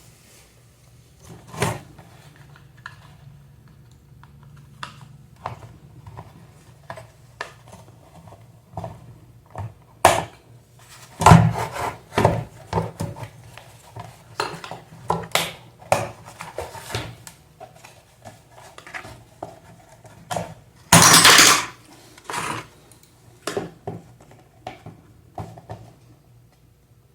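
Scattered clinks, knocks and rattles of metal fan parts and hand tools being handled while an electric fan is taken apart, with a longer scraping noise lasting about a second near 21 seconds in.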